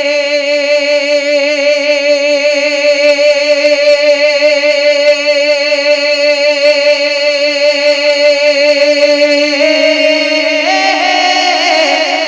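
A male naat reciter holding one long sung note with a wavering vibrato, then stepping up in pitch twice near the end, an unaccompanied vocal melisma in a naat recitation.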